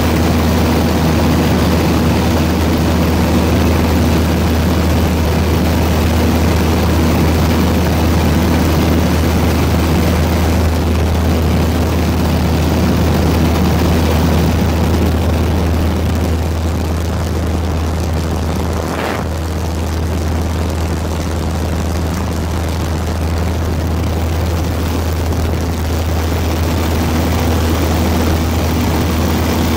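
Steady low drone of an aircraft's engines, heard from aboard the aircraft, with a brief break in the drone about two-thirds of the way through.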